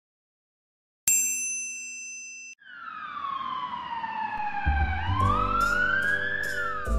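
A bright chime rings about a second in, then an ambulance siren sound effect wails, sliding down in pitch and back up again. Music with bass and a steady drum beat comes in under the siren near the end.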